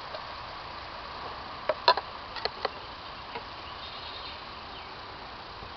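A handful of short, sharp clicks or taps, bunched about two seconds in, over a steady faint background hiss.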